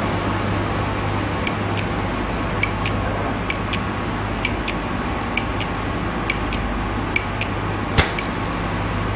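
Metal flip-top lighter, its lid flicked open and snapped shut again and again by the thumb: sharp metallic clicks in pairs, about one pair a second, the last pair the loudest. A steady low hum lies underneath.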